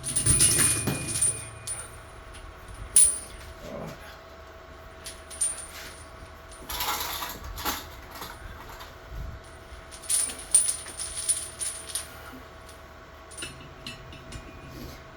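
Steel chain links clinking and jangling in scattered bursts as a length of chain is handled and measured out, over the steady hum of an electric fan.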